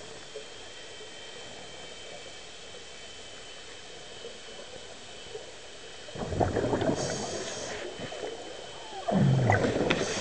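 Scuba diver's exhaled regulator bubbles heard underwater: a steady low hiss, then two bursts of bubbling, about six and nine seconds in, each lasting a second or two.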